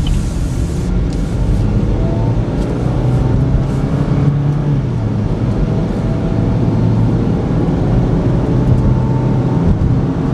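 A 2014 Chevy Equinox's 2.4-litre four-cylinder engine and tyre noise, heard from inside the cabin while driving and gathering speed toward highway speed.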